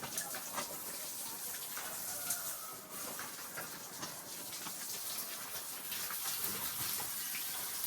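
Water from a hose splashing onto pigs and the concrete pen floor, a steady wash of spray with scattered small splashes and knocks.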